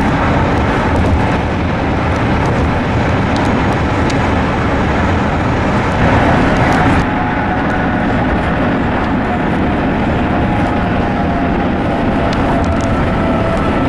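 Steady, loud running noise of a moving vehicle, a dense rumble with hiss, briefly louder about six seconds in, with faint thin high tones joining in the second half.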